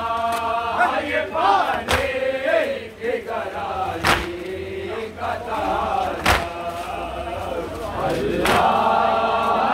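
Crowd of Muharram mourners chanting together in loud, drawn-out calls, with a sharp thump about every two seconds.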